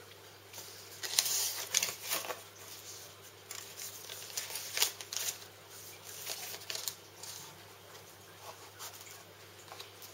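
Cardboard box and paper inserts being handled: irregular rustling, sliding and scraping of card and paper, loudest about a second in and again near five seconds.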